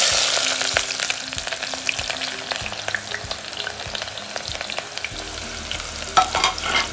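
Sliced onions hitting hot oil in an aluminium pot: the oil bursts into a loud sizzle at once, full of crackles, then settles into a steady frying sizzle.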